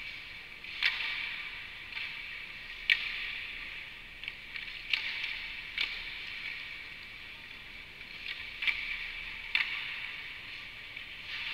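Sharp clacks of hockey sticks and pucks on the ice, about seven at irregular intervals. Each one rings on and fades in the echoing rink.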